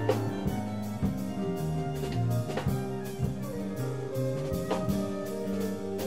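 Live ensemble music: bowed violins holding sustained notes over a moving bass line, with a steady beat of percussion hits.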